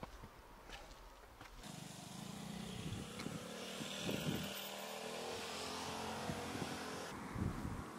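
A motor engine running steadily with an even hum, coming in about a second and a half in, over a light background hiss.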